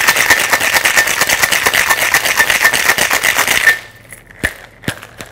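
Ice cubes rattling rapidly inside a glass-and-tin Boston shaker being shaken hard, stopping suddenly about three and a half seconds in. A few separate sharp knocks follow.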